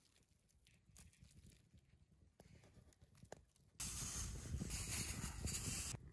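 Faint patter of salt being sprinkled onto raw lamb ribs on a wooden board. Then a wood fire burning, a loud even hiss and rush that starts suddenly about four seconds in and cuts off about two seconds later.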